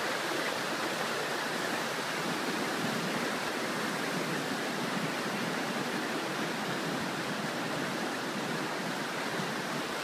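Floodwater of a creek in flood rushing fast over and along an asphalt road, a steady unbroken sound of fast-moving water.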